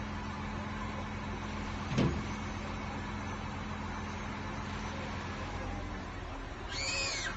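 Steady low hum of a heavy diesel engine running as the boat hangs from the crane. A single sharp knock about two seconds in, and a brief high-pitched squeal near the end.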